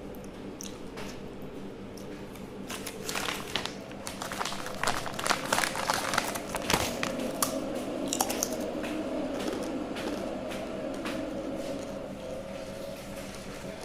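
Eating sounds close to the microphone: chewing, with a dense run of small clicks and rustles from about three to nine seconds in, over a faint steady hum.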